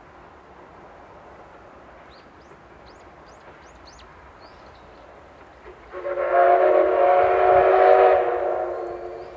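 Steam locomotive whistle blown once, about six seconds in: one long blast of about two and a half seconds, several tones sounding together as a chord, then dying away. Small birds chirp faintly before it.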